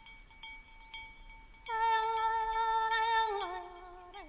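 Soundtrack music: a faint high held tone with soft regular ticks. About two seconds in, one strong sustained note enters, holds steady, then slides down in pitch and fades just before the end.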